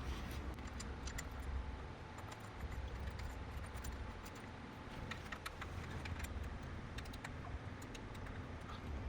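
Faint, irregular metallic clicks and taps of a wrench and bolt hardware being worked while an e-bike kickstand is fastened to its bracket, in scattered clusters over a low steady hum.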